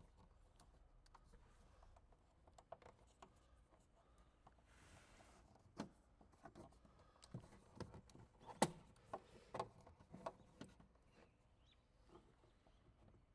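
Scattered light clicks and taps from a rear dash camera and its mount being handled and positioned, thickest in the second half, with a short soft hiss about five seconds in.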